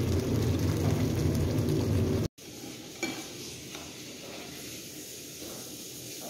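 Pizza sauce simmering in a frying pan on the stove, with a steady low rumble under it. About two seconds in it cuts off abruptly to a much quieter room, with one light click a little later.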